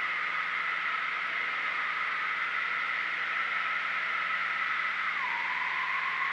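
Cessna 172 Skyhawk engine and propeller at full climb power just after takeoff: a steady cabin drone with a high whine, whose lower tone drops in pitch about five seconds in.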